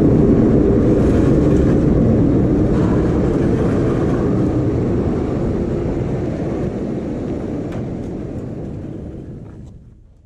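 Engine running with a steady low rumble, fading out over the last couple of seconds.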